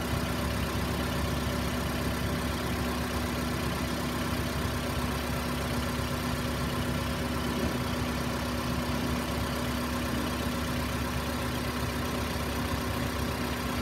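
Toyota RAV4's 2.0-litre 1AZ-FE four-cylinder engine idling steadily. It has a blown head gasket over a warped cylinder head, which is pushing combustion gas into the cooling system and making the coolant foam, though the engine itself runs smoothly.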